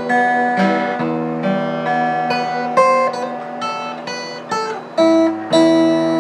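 Acoustic guitar music: plucked notes and strummed chords ringing and decaying, with a fresh chord struck about five seconds in.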